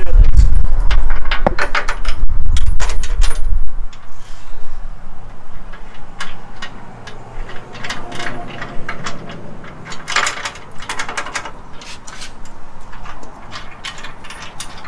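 Irregular metallic clicks and clinks of steel bolts, nuts and washers being fitted by hand to a bolted steel cross member. A heavy low rumble fills the first few seconds and stops about four seconds in.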